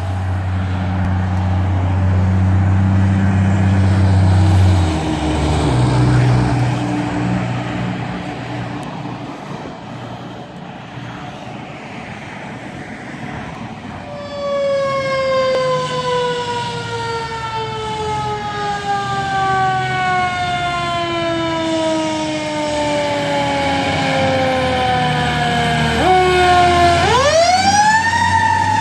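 Fire engine's mechanical siren coasting slowly down in pitch for about twelve seconds, then wound up sharply again near the end and beginning to fall. For the first few seconds a heavy truck engine rumbles.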